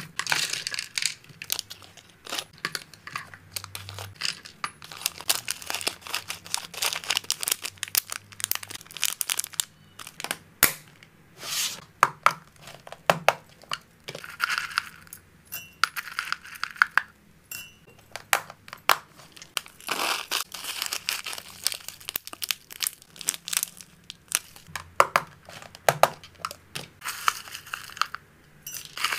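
Dry hamster food and treats rustling and crunching as they are handled and scooped with a spoon, mixed with sharp clicks and taps of plastic containers. It is a close, busy patter of many small clicks over a rustling hiss.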